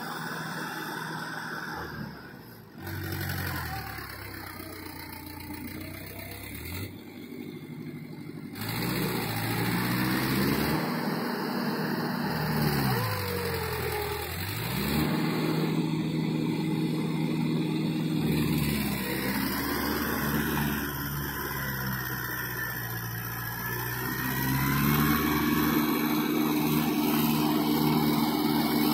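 Mahindra 475 DI tractor's four-cylinder diesel engine working through deep mud, its pitch rising and falling several times as the engine speeds up and slows. It grows louder near the end as the tractor comes closer.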